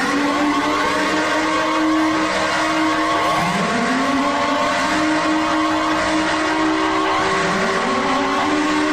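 Emergency alert alarm audio: a dense mix of steady electronic tones, with a low siren-like tone that rises and then holds, three times about four seconds apart.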